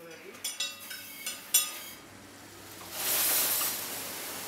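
Metal dishes and cutlery clinking a few times, with one loud clink about a second and a half in. From about three seconds in, a kitchen tap runs hard, its water splashing into metal water jugs in a stainless-steel sink.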